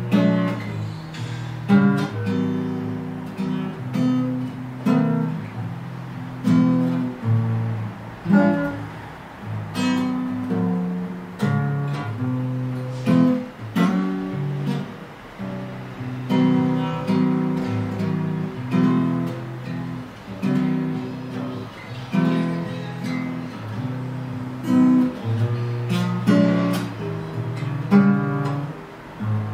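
Acoustic guitar playing slow chords, each struck and left to ring, a new one every second or two.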